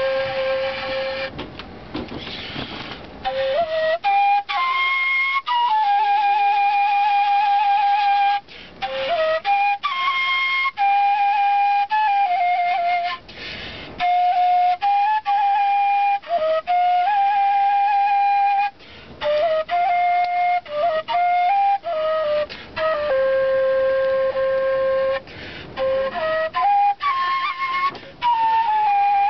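Solo kaval, the Bulgarian end-blown shepherd's flute, playing a slow melody of long held notes linked by quick ornamental turns, with short pauses between phrases.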